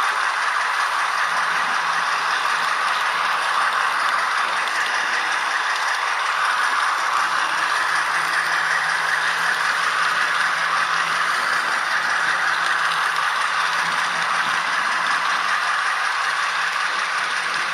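H0 model train running along the track, heard from a camera riding on it: a steady rattle of wheels on rail joints and motor gearing.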